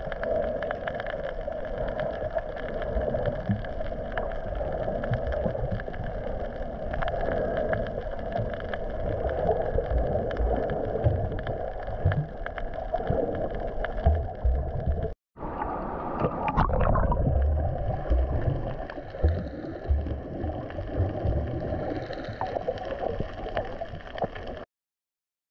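Muffled underwater sound from a camera held under the sea while snorkeling: a steady watery rush and low rumble with a constant hum. It breaks off briefly about fifteen seconds in and cuts off suddenly near the end.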